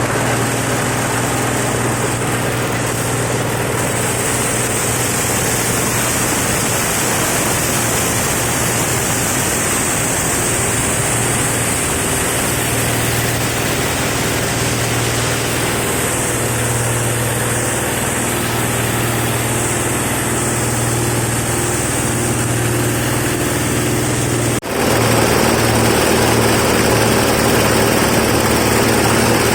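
Disk mill flour grinder running steadily with a constant mechanical hum and hiss. About 25 s in the sound drops out for an instant and comes back slightly louder.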